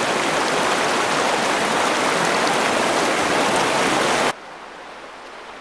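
River rapids rushing in a loud, steady roar of whitewater, which drops suddenly to a much fainter hiss about four seconds in.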